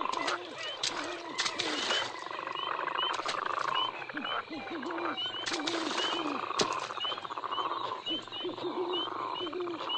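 Pirates of the Caribbean ride's night-bayou sound effects: frogs croaking in overlapping low and buzzy calls, with short high chirps repeating about twice a second and scattered sharp clicks.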